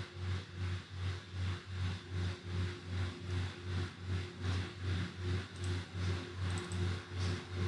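A low mechanical hum that swells and fades about three times a second, steadily.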